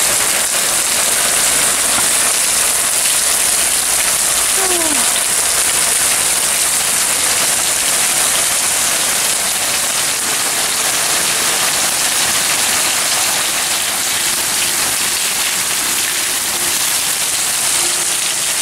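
Heavy rain pouring down onto a concrete walkway and lawn, a steady, even hiss.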